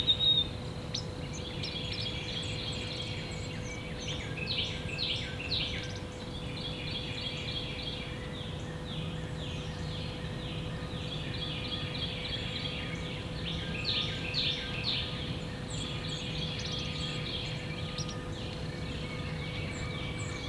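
Songbirds singing in the background, several overlapping series of short, quickly repeated falling notes, a little louder twice, over a steady faint hum.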